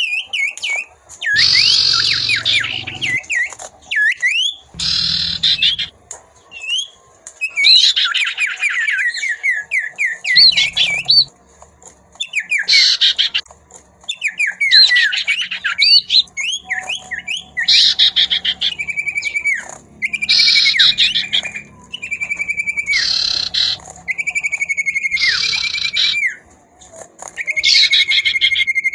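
Common ioras singing back and forth in loud repeated phrases: quick series of sweeping whistled notes and, later, long level whistles that break into trills. Harsh chattering bursts between the phrases are the female's chatter.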